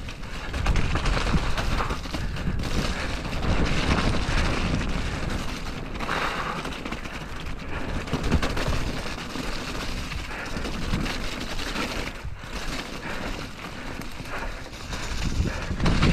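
Mountain bike being ridden fast down a wet, rocky, muddy trail: tyres rolling over mud and stones and the bike's chain and frame rattling in an irregular clatter, over a constant rumble of wind on the microphone.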